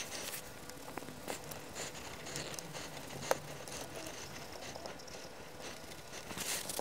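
White tissue rubbing over the front panel of a Taylor 127A analogue multimeter during cleaning: faint, soft scrubbing with a few light taps, and one sharper click about three seconds in.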